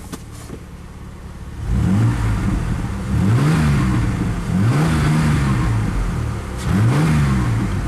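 Ford Ranger 4.0 L V6 engine idling, then revved up and let fall back four times in quick succession. It runs much smoother, a misfire cured by reconnecting a spark plug wire that had been left off.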